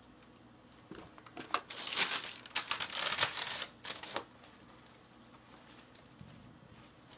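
Packaging being handled and unwrapped, crinkling and rustling in a quick run of bursts for about three seconds.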